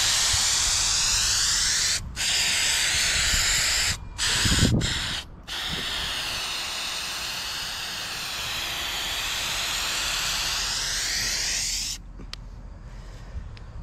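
Aerosol can of Dupli-Color truck bed liner coating spraying in a long, loud hiss, let off briefly a few times between about two and five and a half seconds in and stopping near the end. A brief low bump sounds about four and a half seconds in.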